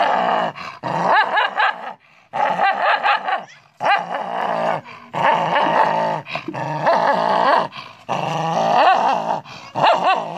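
A dog growling and snarling in a run of rough bouts, each about a second or so long, with short breaks between them.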